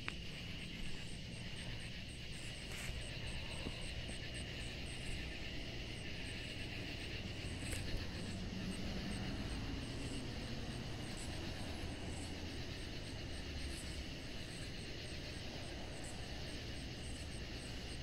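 Night chorus of cicadas and other insects: a steady high buzz with a higher, evenly pulsed chirp running through it, over a low rumble.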